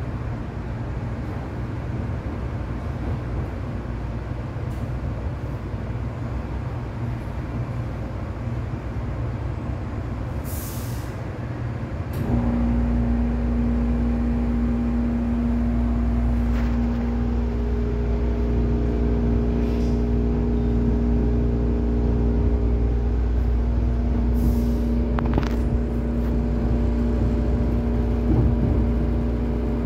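Inside an MTR East Rail Line mid-life refurbished electric train: a steady low rumble. About twelve seconds in, it grows louder and a steady, even-pitched machine hum sets in and holds. Brief air hisses come twice, around eleven and twenty-five seconds in.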